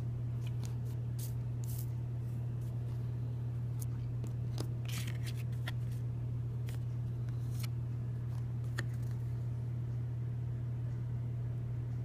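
Light clicks and crinkles of stiff game cards and plastic packaging being handled, scattered through the first half and a few more near the middle, over a steady low hum.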